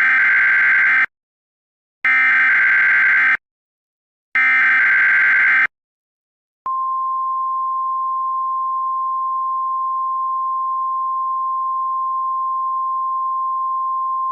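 Three bursts of EAS SAME header data, the screeching digital warble that encodes an emergency alert, each about a second long with short gaps between them. About a second after the last burst, the steady single-pitch NOAA Weather Radio 1050 Hz warning alarm tone starts and holds. Together they signal that a new warning broadcast is about to begin.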